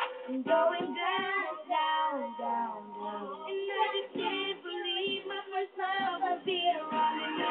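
A song with a high, child-like singing voice over music, the voice sliding down in pitch about two seconds in.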